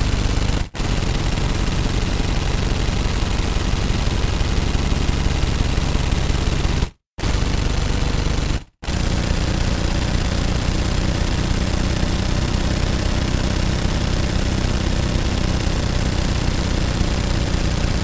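Automatic gunfire: long, unbroken bursts of very rapid fire, with three brief breaks, the longest about seven seconds in.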